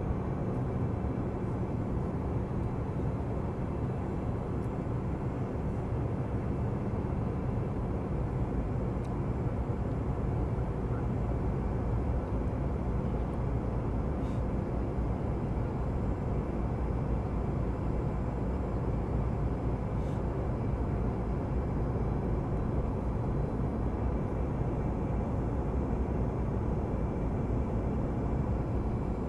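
Steady cabin noise inside a Boeing 757-200 descending on approach: a low rumble of the engines and the air rushing past the fuselage, with a faint steady hum running through it.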